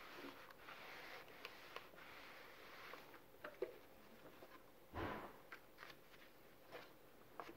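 Faint handling sounds: a clothes iron sliding over a folded paper card on a padded ironing board for the first few seconds, then light paper clicks and rustles as the card is handled, with a louder brush or thump about five seconds in.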